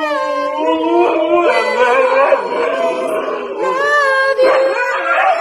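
A husky howling in long, wavering tones, singing along with a person who sings at the same time.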